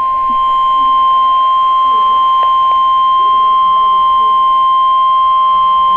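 NOAA Weather Radio's 1050 Hz warning alarm tone: one long, steady, loud beep, heard through a weather radio receiver with faint static. It cuts off suddenly at the end, and signals that a warning is about to be read.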